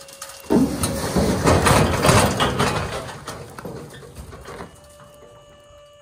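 A large log sliding down the raised steel bed of a dump trailer and dropping onto gravel: a sudden loud scraping crash about half a second in, full of knocks and crunches, fading over the next few seconds. A steady hum comes back near the end.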